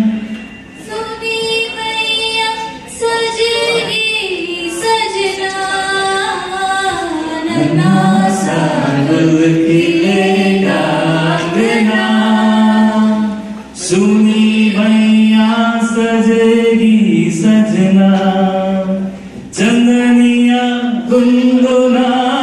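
A small group of men and women singing a song together into microphones, unaccompanied, in long held phrases with brief breaths between lines.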